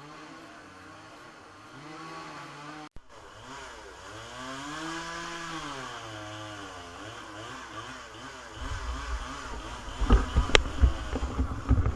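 Chainsaw engine revving up and falling back in slow swells, as in cutting up a storm-felled tree. In the last few seconds come loud, irregular low thumps and knocks.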